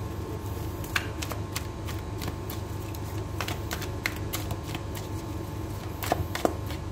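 A deck of tarot cards being shuffled by hand: irregular soft clicks and flicks of the cards, over a steady low hum.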